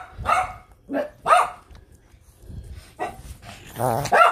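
Small dog barking: about five short, high-pitched barks at uneven spacing, the last one near the end longer than the rest.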